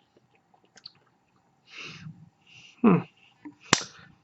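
Quiet chewing of a crunchy potato chip, with a brief pitched vocal sound about three seconds in and one sharp click near the end.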